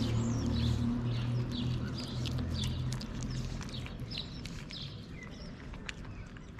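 Small birds chirping repeatedly, with faint clicks from cats eating wet food. A low steady hum fades out over the first three seconds.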